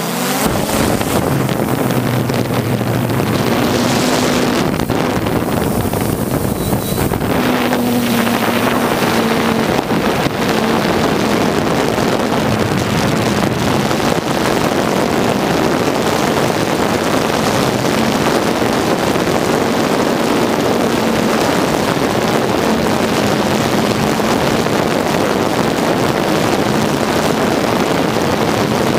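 3DR Solo quadcopter's four motors and propellers running steadily in flight, with a faint hum that comes and goes, under heavy wind rush on the onboard camera's microphone.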